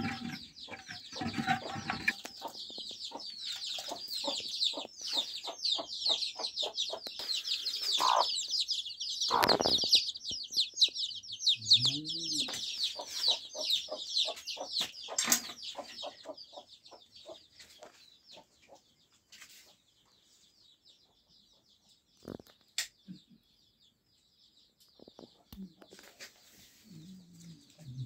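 Chickens in a farmyard, clucking and chirping in a dense, rapid chatter that thins out a little past halfway, with a few sharp knocks and occasional low calls.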